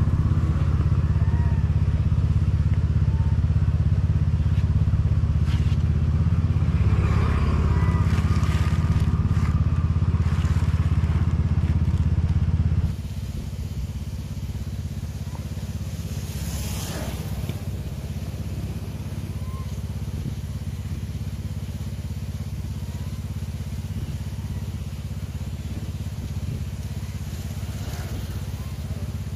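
Motor scooter engine running steadily with a low rumble. About thirteen seconds in it gives way abruptly to a quieter, steady low rumble.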